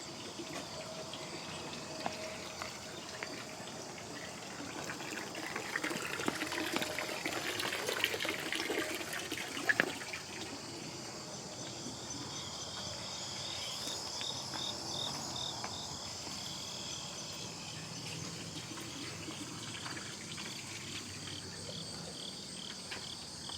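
Insects chirping steadily in a high, thin chorus, with a rhythmic pulsing trill partway through and again near the end. A stretch of rustling noise comes about a quarter of the way in, ending in a sharp click.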